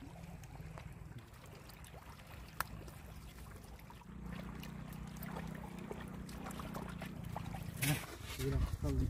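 Muddy water trickling and pouring out of two plastic pipes set in a sand-and-mud dam, running onto wet sand. A few sharp clicks, and a short voice sounds near the end.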